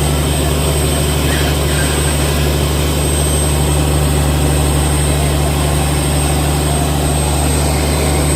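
Fishing boat's engine running at a steady drone, with a thin, constant high whine above it.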